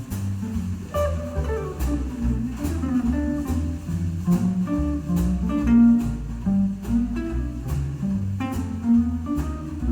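Instrumental jazz played back over hi-fi loudspeakers with a subwoofer: plucked guitar over a bass line, with a light steady beat of about two ticks a second.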